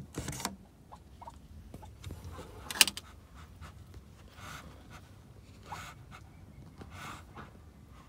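A steel barrel bolt on a wooden door is slid open with a few metallic clicks, and there is a sharp clack near three seconds in. Then come soft breathy hisses about every second and a half, typical of Muscovy ducks hissing at someone close to their nest.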